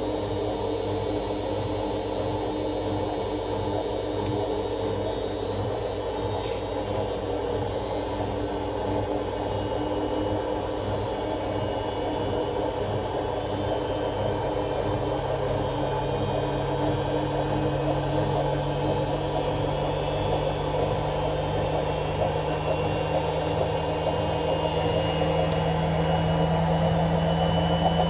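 AEG washing machine running with its drum speeding up: a steady mechanical rush with a whine that slowly rises in pitch and grows louder, a low hum coming in about halfway through, and the rattling that the owner is recording as a fault.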